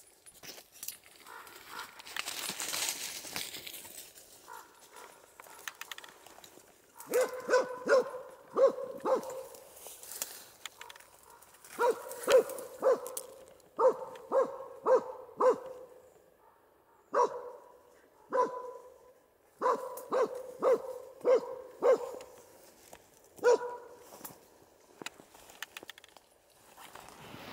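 A hunting dog barking over and over in short runs of a few barks, about two a second, with brief pauses between the runs. The barking follows a few seconds of brush rustling.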